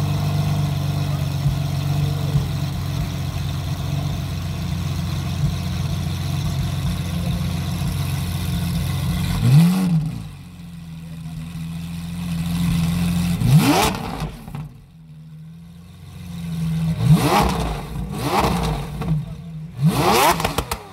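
Lamborghini Aventador LP700-4's V12 idling steadily through an Akrapovič exhaust, then blipped: one short rev about ten seconds in, another a few seconds later, and a run of quick throttle blips near the end, each rising in pitch and falling back.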